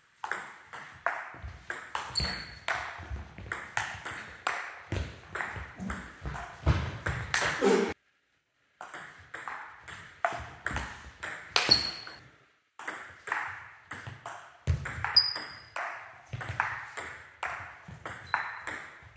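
Table tennis rally: the ball clicks off the rackets, one fitted with a Sauer & Tröger Monkey long-pimple rubber, and off the table, about two hits a second, echoing in a sports hall. The rally breaks off briefly about eight seconds in, then resumes.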